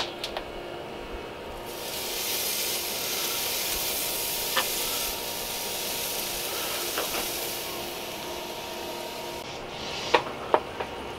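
Raw tri-tip sizzling on a hot kamado grill grate, a steady hiss, with a few light clicks as the meat and probe are handled near the end.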